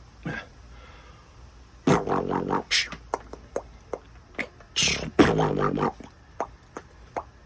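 A man beatboxing into a doorbell camera's microphone: after a quiet start, bass hums with kick-like hits about two seconds in and again about five seconds in, with sharp clicks and hi-hat-like ticks between them.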